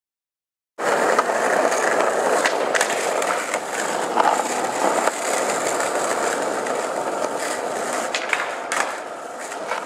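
After a moment of silence, skateboard wheels rolling on pavement, a steady rough rumble with scattered clicks and knocks. Near the end, sharper knocks as the board goes onto a bench.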